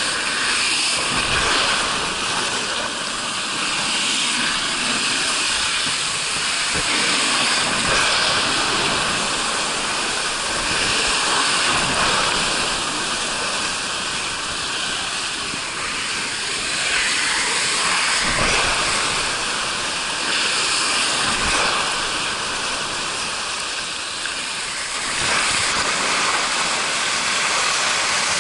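Water rushing and spraying down a water slide under a rider's inflatable tube: a steady, loud hiss of water with a few low thumps as the tube bumps along the flume.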